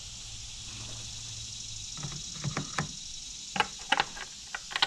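Irregular short clicks and scrapes of hands working on a car engine bay: a rag wiping the plastic engine cover and the oil filler cap being twisted back onto the valve cover. They start about two seconds in and grow more frequent toward the end, over a faint steady hiss.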